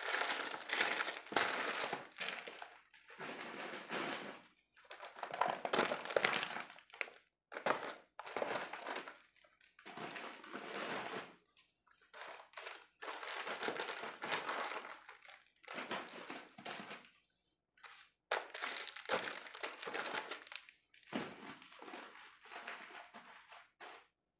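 Plastic packaging and bags crinkling and rustling in irregular bursts as packaged goods are pressed and arranged in a suitcase, with a few short pauses between handlings.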